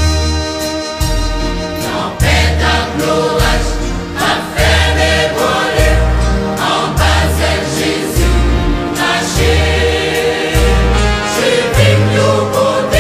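Gospel choir singing in Haitian Creole over a band with a steady, regular bass pulse; the voices come in about two seconds in, after a short instrumental passage.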